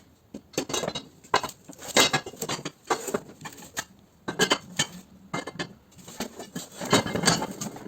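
Iron frame pieces and screws of a cooler trolley being handled, clinking and knocking together in many irregular sharp strikes.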